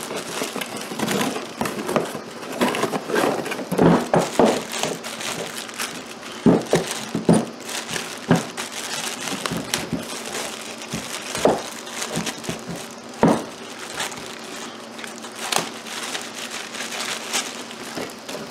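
Packaging crinkling and rustling, broken by many irregular clicks and knocks, as a new carpenter's vise is unpacked and handled.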